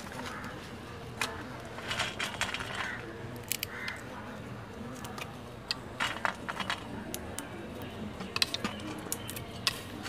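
Scattered light clicks and clinks of kitchen utensils and dishes being handled, over a steady low background noise.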